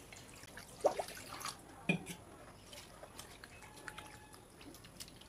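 Faint, scattered drips and small splashes of rinse water from fresh chhena (milk curds) in a cotton cloth over a bowl, the clearest about one and two seconds in.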